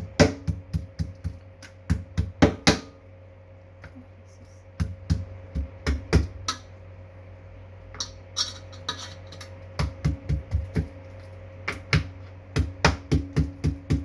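Kitchen pounding: a hard tool striking food on a hard surface in bursts of several quick blows, about three or four a second, with short pauses between bursts.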